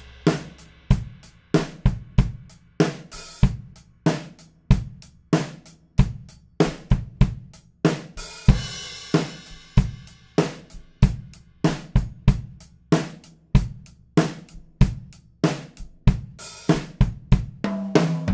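Yamaha Recording Custom drum kit played with no new heads or tissue muffling: separate strokes around high-tuned rack toms, low floor toms, a steel snare and a 20-inch kick, mixed with cymbals. The strokes come about one to two a second, and each drum rings out with an open, sustained tone.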